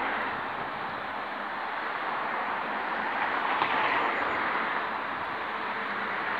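Steady rush of passing vehicles, swelling a little past halfway as one goes by.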